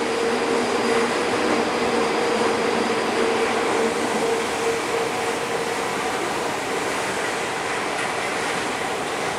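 Running noise inside a commuter train car as it travels toward the next station: a steady rumble of wheels and running gear. A held mid-pitched tone fades out about halfway through.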